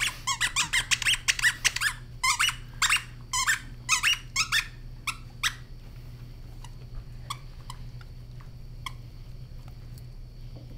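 Squeaker inside a plush chipmunk toy squeaking as a greyhound chews it: a fast run of short squeaks for about two seconds, then single squeaks with gaps between. They stop about five and a half seconds in, leaving only faint clicks.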